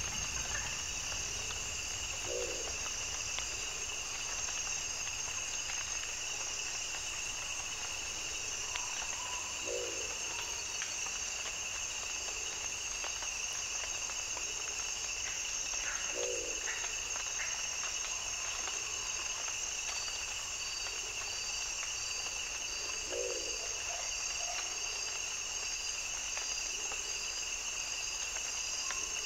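A wild-habitat soundscape recording of a steady insect chorus, several insects trilling at different pitches. A short, low animal call repeats about every seven seconds.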